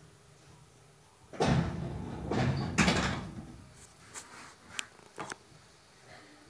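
Pneumatic doors of an EN57 electric multiple unit closing before departure: a loud rush of air about a second and a half in, then a few sharp clicks and knocks.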